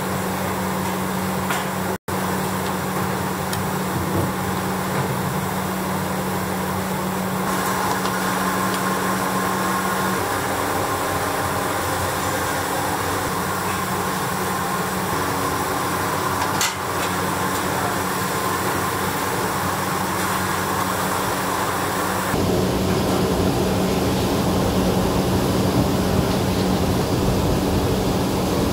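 Steady machine-like rush and low hum of a restaurant kitchen, changing abruptly a few times where the picture cuts, with a brief dropout about two seconds in.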